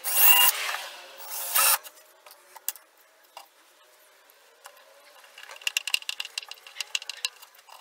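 Cordless drill boring pilot holes for a magnetic cabinet catch in two short bursts, the motor spinning up in pitch at the first. Then a few faint taps, and near the end about two seconds of rapid clicking as a screw is hand-driven into the catch with a screwdriver.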